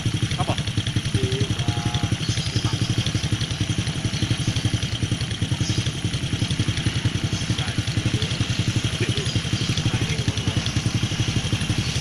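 Motorcycle engine running steadily at low revs, a fast, even pulsing of exhaust beats.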